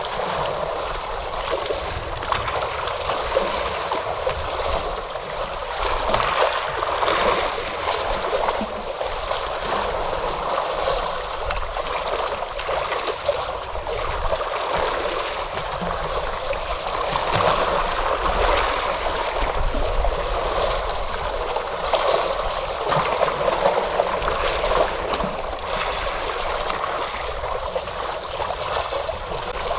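Ocean waves washing in, a continuous rush of water that swells and eases every few seconds.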